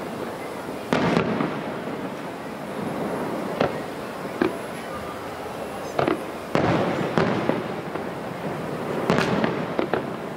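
Aerial fireworks shells bursting in the sky: a series of sharp booms, about eight in all, some in quick pairs, each trailing off in a rumbling echo.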